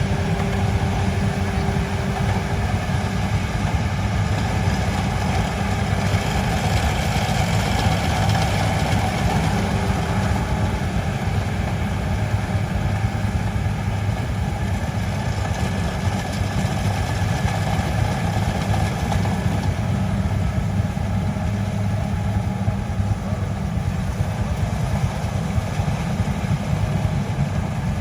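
Combine harvester running steadily at an even engine speed, a dense low machine sound that doesn't change.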